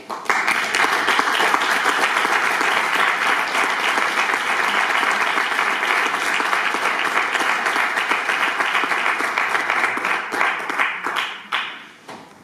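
Audience applauding: dense, steady clapping that starts suddenly, then thins to scattered claps and stops near the end.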